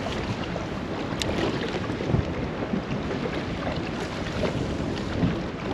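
Steady wind noise rushing over the microphone, with choppy water lapping around a bass boat.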